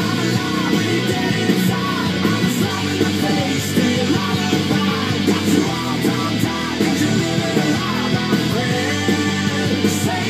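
Rock music with guitar, playing steadily as a soundtrack.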